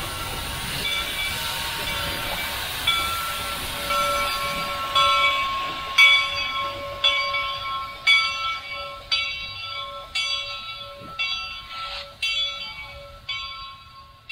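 Steam locomotive bell ringing about once a second, each stroke ringing on, over steam hiss and train running noise that fades away.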